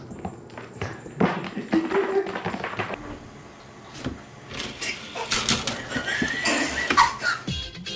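People's voices over a run of short knocks and scuffles as a startled house cat jumps and scrambles across the floor. The sound changes abruptly about three seconds in.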